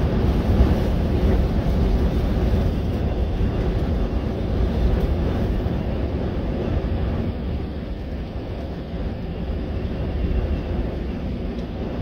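Steady low rumble of a vehicle driving on a gravel road, heard from inside the cabin: tyre and road noise.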